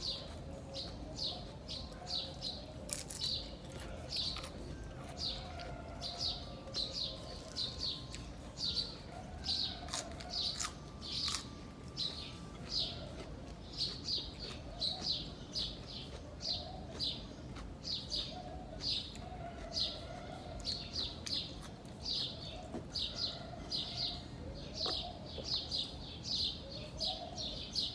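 Small birds chirping over and over, several short high chirps a second, with a few sharp clicks among them.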